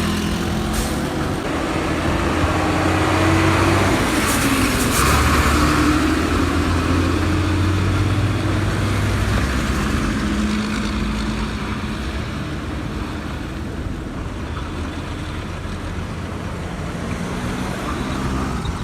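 Road traffic: vehicle engines running and passing close by, loudest about three to six seconds in, then easing to a steadier traffic hum.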